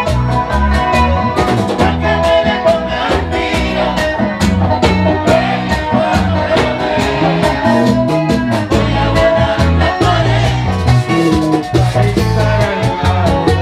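Live bachata band playing loud music with a steady, driving beat.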